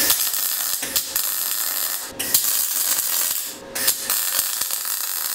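MIG/MAG welding arc of a Stahlwerk MIG MAG 200 Puls Pro set to about 45 amps, sizzling and crackling as a bead is run on steel plate a little over a millimetre thick. It comes in three runs, with short breaks about two seconds and three and a half seconds in.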